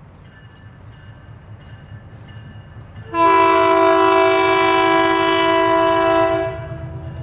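EMD SW900 switcher locomotive sounding its air horn: one long multi-note chord of about three seconds, starting suddenly about three seconds in. The diesel engine rumbles low under it as the locomotive approaches.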